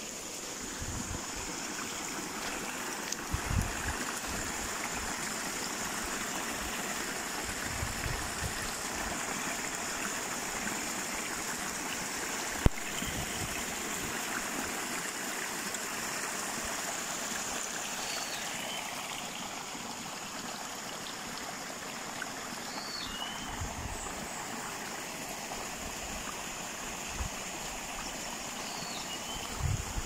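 Creek water flowing and trickling steadily. A few short high chirps come in the second half, and there are a few low thumps and one sharp click.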